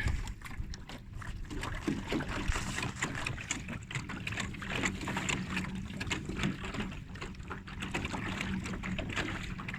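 Small boat's 24-volt electric motor running at low speed with a faint steady hum, under irregular water splashing and lapping against the hull.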